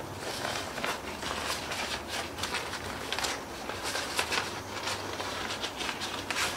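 Cloth rod sleeve rustling and swishing as it is handled and opened to draw out a rod section, in soft irregular rustles, over a faint steady low hum.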